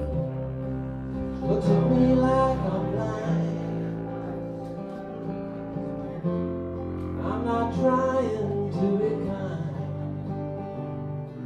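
Live acoustic band music: an acoustic guitar strummed over a plucked upright bass, with a flute and a singing voice carrying the melody.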